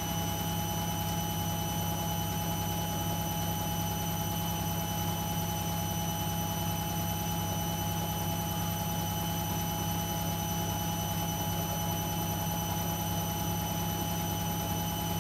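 Beko BKY 2317 B front-loading washing machine spinning at a steady speed: a constant low motor hum with a fixed high-pitched whine over it, without pauses.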